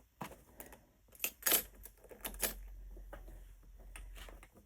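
Metal clicks and light clattering from an embroidery machine's cap hoop and its latch as they are handled, with a faint low hum through the second half.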